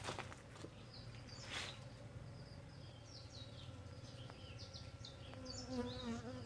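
Honeybees foraging on coffee flowers, a faint steady buzzing hum, with short high bird chirps through the middle. Near the end one bee buzzes closer, a wavering drone.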